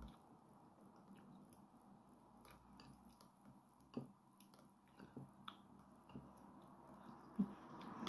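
Near silence with a few faint clicks of chopsticks against a ceramic bowl while stirring soy sauce, then one sharper knock near the end as the chopsticks are set down on a wooden chopping board.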